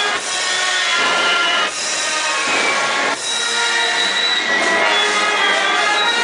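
Procession band playing a funeral march, its wind instruments holding long chords with short breaks between phrases.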